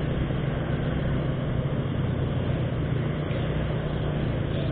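Honda automatic scooter riding at a steady pace: a steady low engine hum mixed with road and wind noise on the mic.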